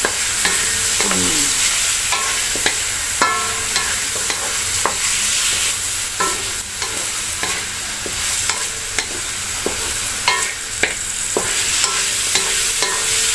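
Chicken pieces with garlic and onion sizzling in oil in a metal wok, stirred and scraped with a wooden spatula. The spatula knocks against the wok about once or twice a second, some strokes leaving a short metallic ring over a steady frying hiss.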